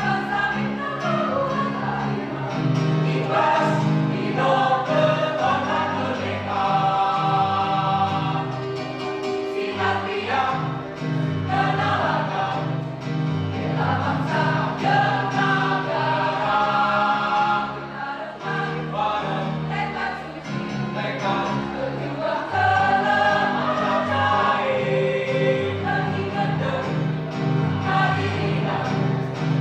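Mixed choir singing in parts, women's voices over lower men's voices, with no break.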